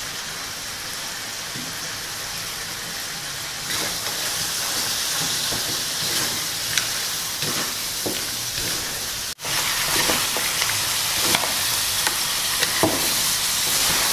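Freshwater mussels in spice paste sizzling in an aluminium wok over a gas flame, stirred with a wooden spatula, with short knocks of shells and spatula against the pan. The sizzle grows louder about four seconds in, and the sound cuts out for an instant about nine seconds in.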